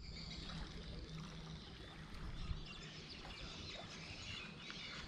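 Faint outdoor riverside ambience: a low steady hum under an even hiss, with a few faint bird chirps.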